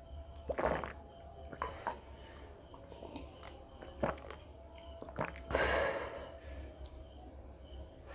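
A person gulping a drink from a glass jar, several swallows about a second apart, then a longer breathy burst of noise about five and a half seconds in.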